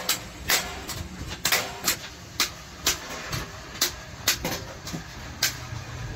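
Small hand hammer striking a sheet-metal milk-can ring against a steel plate: about a dozen sharp metallic strikes, irregular at roughly two a second, each ringing briefly, over a steady low hum.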